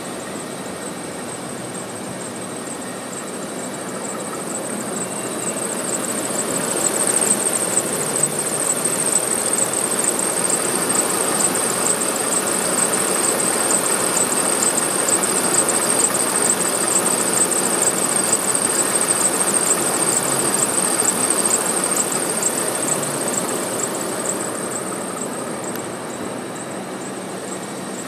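Abnormal high-pitched squeal from the engine bay of a running Mercedes-Benz V-Class (W639). It is a steady shrill tone with a rapid fluttering chatter over a hum of running machinery. It grows louder about six seconds in and eases off again near the end.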